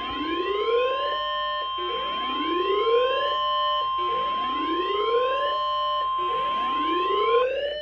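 Emergency Alert System attention tone for a tornado warning: a steady high alert tone held under a rising whooping siren sound that repeats about every two seconds. The steady tone cuts off just before the end.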